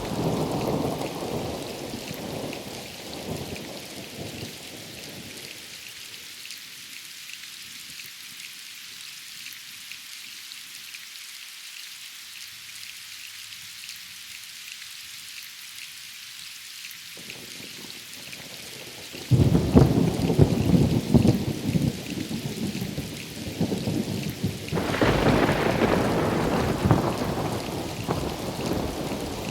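Steady rain with thunder. A low rumble dies away over the first few seconds, leaving only the rain; about two-thirds through a sudden loud thunderclap breaks in and rolls on, and a second peal swells up near the end.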